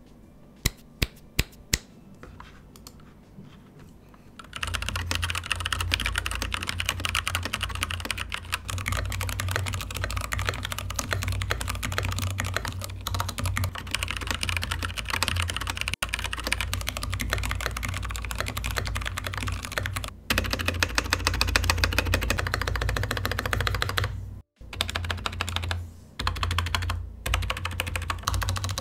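Keychron K8 mechanical keyboard: a handful of single key clicks, then from about four seconds in fast, continuous typing, with two brief breaks near the end.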